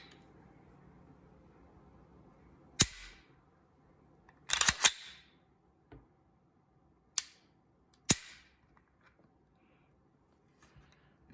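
Glock 40 Gen 4 10mm pistol being dry-fired to check its trigger reset: a series of sharp mechanical clicks from the trigger and action, with a quick cluster of clicks about four and a half seconds in where the slide is worked.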